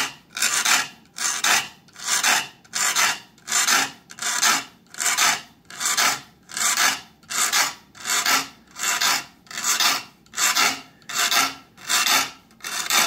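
Needle file sharpening the very small 22-teeth-per-inch teeth of a new saw, one short metal-on-metal stroke per tooth at a steady pace of about two strokes a second. The filing refines the existing teeth of a new saw so it cuts more efficiently.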